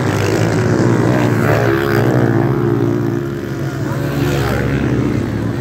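Several pit bike engines running hard together, a loud overlapping buzz whose pitch rises and falls as the riders open and close the throttle.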